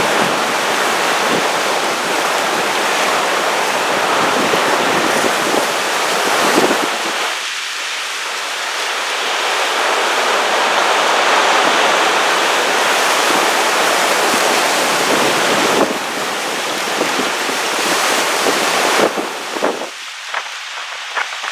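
Big ocean waves breaking and surging, a loud continuous rush of surf that swells and ebbs. Near the end the surge falls away into scattered splashes of draining water.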